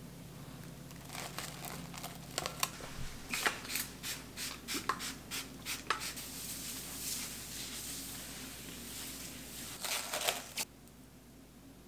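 Plastic cling wrap pulled and torn from its roll, then crinkling as it is stretched and pressed over a glass bowl: a run of sharp clicks followed by steadier crinkling that stops abruptly near the end.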